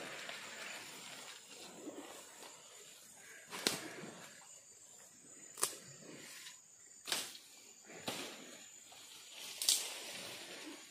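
Riverside ambience: the steady hiss of a flooded river flowing past the bank, with a thin, steady high-pitched tone over it. Four sharp clicks or rustles break through, the loudest near the end.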